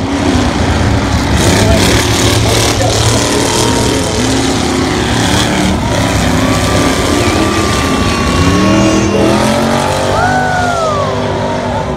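Loud engines of derby cars running on a dirt track, their revs rising and falling, over a steady noisy bed.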